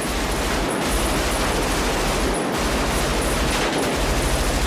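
Sustained automatic rifle fire in a street gunfight: a dense, continuous stream of shots.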